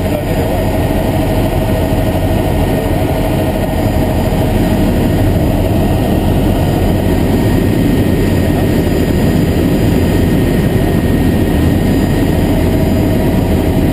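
Helicopter engine and rotor noise heard from inside the cabin in cruising flight, loud and steady, with a thin steady whine that fades out about halfway.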